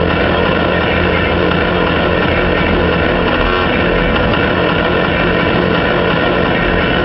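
Doosan DX300LC excavator's diesel engine running steadily under working load.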